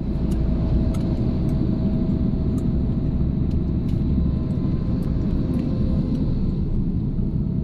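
Steady low rumble of a road vehicle driving, heard from inside the cab, with a faint steady hum above it and a few light clicks.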